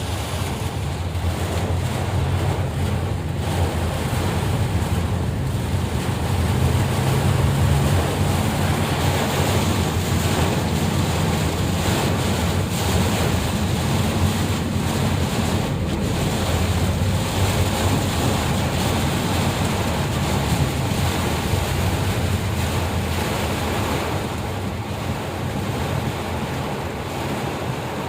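Steady rushing noise of heavy rain with wind buffeting the microphone, strongest as a low rumble and swelling slightly in the first third.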